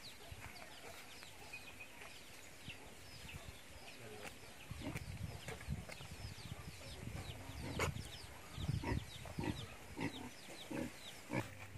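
A chicken struggling as it is held down and its throat cut with a knife: irregular scuffling thumps and a few sharp knocks, heaviest in the second half. Behind them a bird chirps repeatedly, several short high chirps a second.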